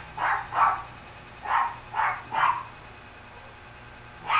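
A dog barking in short runs of quick barks, about two or three a second, with one more bark near the end.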